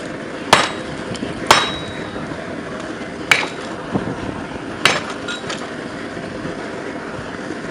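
Blacksmith's hammer striking steel on an anvil while forging: four sharp, irregularly spaced blows in the first five seconds, a lighter tap and a few faint ones among them, over a steady background hiss.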